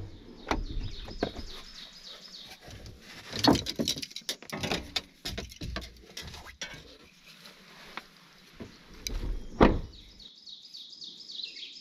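Irregular knocks and clunks, the loudest about three and a half and nine and a half seconds in, with small birds chirping.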